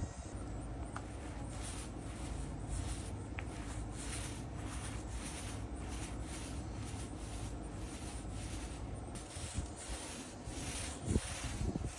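Small paint roller rolling white paint over a particle-board panel, a soft rubbing swish with each stroke, about two strokes a second. A short knock near the end.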